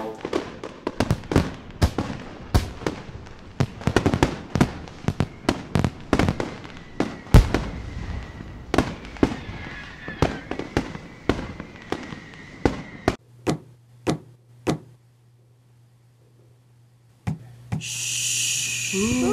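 Fireworks going off as a dense run of sharp bangs and crackles, with a thin steady whistle through the middle. After about thirteen seconds they thin to a few single pops, and a hiss comes in near the end.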